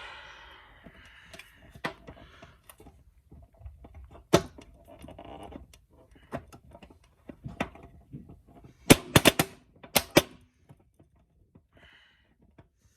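Coin-operated bouncy ball vending machine being worked: a run of clicks and rattles from the coin slot and turning crank, then several loud sharp clanks about nine to ten seconds in. The machine appears jammed and gives out no ball.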